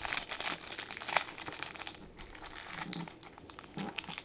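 Wrapper of a trading-card pack crinkling and crackling as it is handled and opened by hand, in dense irregular strokes that thin out briefly about halfway through.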